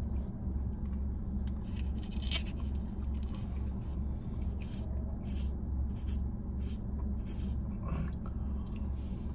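A plastic spoon scraping and clicking in a cup of Italian ice, with quiet eating sounds, over a low, steady hum inside a car cabin.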